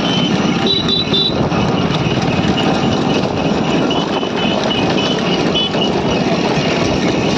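Steady vehicle engine and road noise while moving at the pace of a bullock cart, with three short high beeps about a second in.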